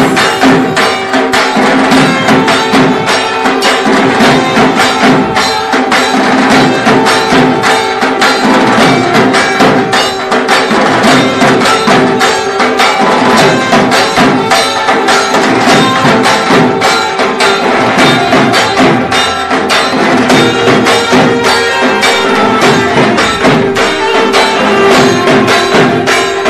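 Background music in a traditional folk style: a fast, steady run of percussion over several held, drone-like tones.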